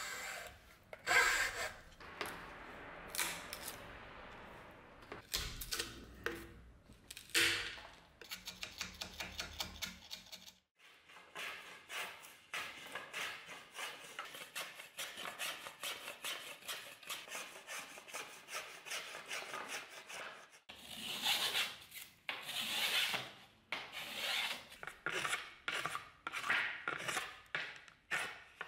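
Hand tools working a beech wood handle blank: hacksaw strokes cutting the wood, then after a break about ten seconds in, steady rasping, scraping strokes shaping the wood, about two to three a second.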